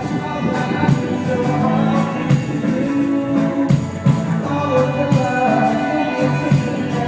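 A live rock band playing through a club PA: drum kit, bass, guitars and vocals, recorded by a phone.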